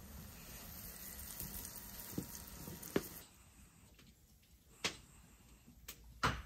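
Potato slices sizzling in hot oil in a pan, a steady hiss that stops suddenly a little over three seconds in. A few sharp clicks or knocks follow, the loudest just before the end.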